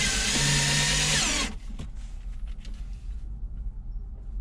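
Power drill driving a one-inch self-tapping screw through a wooden mounting board; the motor runs steadily, then slows and stops about a second and a half in.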